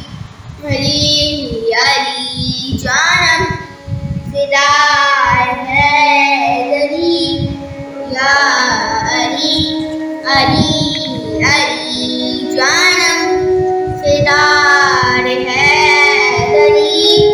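A young girl singing an Urdu manqabat, a devotional song in praise of Ali, in phrases with short breath pauses, over a steady held background tone that steps up in pitch about two-thirds of the way through.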